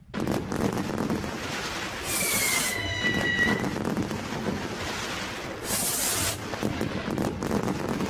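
Fireworks sound effect: steady crackling with short bursts of hiss about every three and a half seconds, and a whistle falling slightly in pitch around two to three seconds in.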